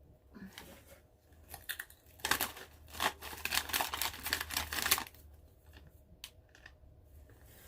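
A crisp packet crinkling and rustling as it is handled, loudest from about two to five seconds in, then a few faint clicks.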